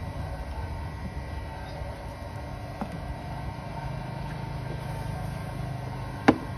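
Grilled clam shells knocking as they are handled and set down on a plastic tray: a faint click a little before the middle and one sharp click near the end. A steady low rumble runs underneath.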